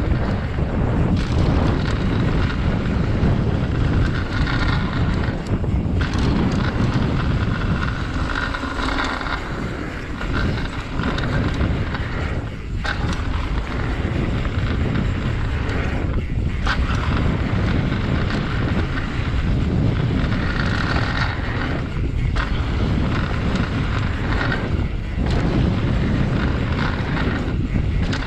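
Mountain bike riding down a dirt trail, heard through an action camera's microphone: a steady, loud rush of wind on the mic mixed with tyre and trail noise, with a few brief dips.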